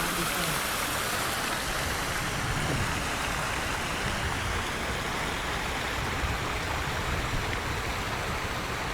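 Steady rush of running water from a small waterfall on a creek.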